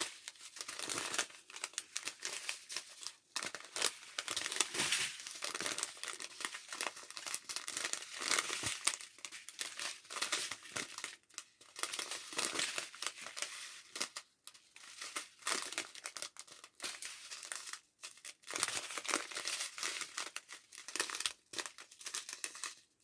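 Small plastic bags of diamond painting drills crinkling continuously as they are handled, with brief pauses.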